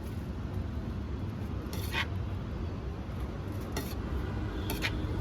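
Plates and utensils clinking three times, a couple of seconds in and twice near the end, over a steady low hum.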